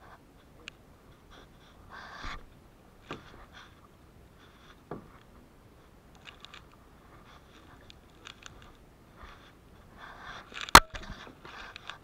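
Kayak paddling: paddle blades dipping into the water with short splashes and drips, a few light knocks, and one sharp, loud knock near the end.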